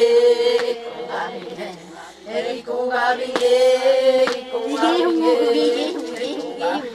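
A group of women chanting together, one note held steadily throughout with other voices rising and falling over it, dipping briefly about two seconds in.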